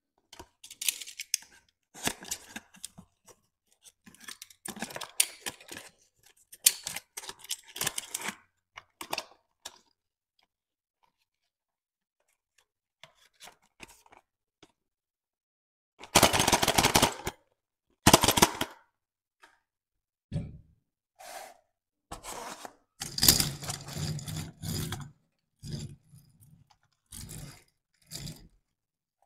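Cardboard toy boxes and die-cast Tomica toy trucks being handled: intermittent scraping and rustling of card against card and of the toys on the cardboard, with a quiet stretch of several seconds midway.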